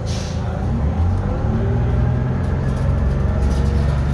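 Detroit Diesel 6V71N two-stroke V6 diesel of a 1982 GM New Look bus pulling under way, heard from inside the cabin; it gets louder about a second in and its pitch rises slowly as the bus accelerates. A short hiss at the very start.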